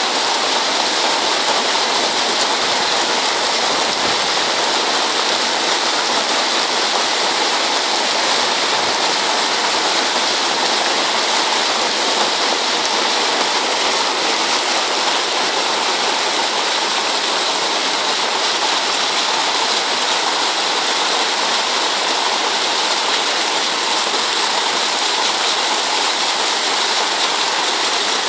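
Muddy floodwater rushing down a flooded street in a steady, loud, unbroken rush of water.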